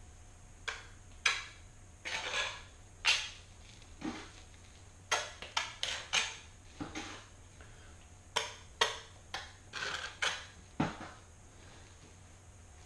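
Steel trowel scraping and clinking against a narrow porcelain tile as thinset mortar is spread on its back, in a run of short, irregular strokes that stop about two seconds before the end.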